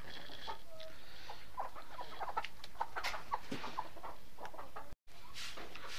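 Domestic chickens clucking softly in their pens, mixed with scattered short clicks and taps. The sound drops out for an instant about five seconds in.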